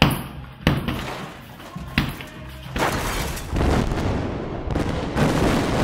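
Music with three sharp hits in the first two seconds, then rumbling explosion sound effects that swell in several waves from about three seconds in.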